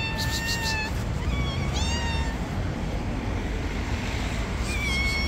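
Hungry stray cats meowing to beg for food: four separate meows, a long one at the start, two shorter ones around one and two seconds in, and another near the end.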